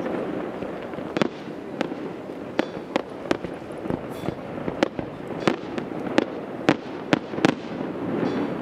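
Fireworks display: aerial shells bursting one after another, about a dozen sharp bangs over a steady background rumble, the loudest coming in the second half.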